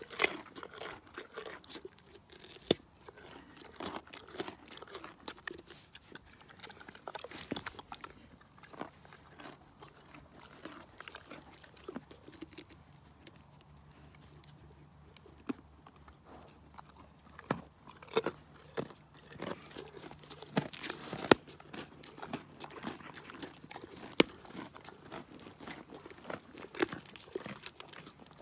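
Ponies biting and chewing carrots taken from a hand, with irregular sharp crunches throughout.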